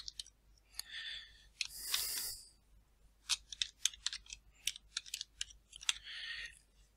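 Typing on a computer keyboard: a quick run of about a dozen soft key clicks in the second half, with a few faint hissing noises between them.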